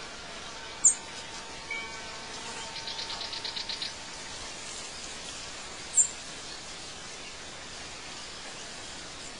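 Outdoor birdsong ambience over a steady hiss: two short, sharp, high chirps about five seconds apart are the loudest sounds, and a rapid high trill comes about three seconds in.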